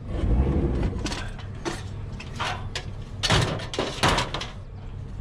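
Clanks and rattles of scrap metal light housings being shifted at a vehicle door, a string of sharp knocks with the loudest two about three and four seconds in.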